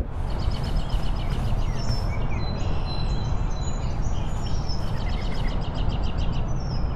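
Outdoor park ambience: birds chirping in quick repeated trills and short whistles over a steady low rumble.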